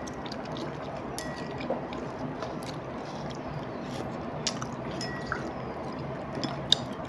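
Wet slurping and mouth sounds of someone eating laksa noodles, with a few sharp clicks of wooden chopsticks against a ceramic bowl.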